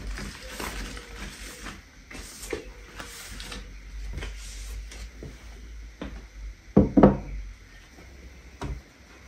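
Household objects being moved and set down on a wooden dresser top, with light rubbing and small knocks throughout. Near seven seconds in comes a loud pair of knocks as something is put down on the dresser.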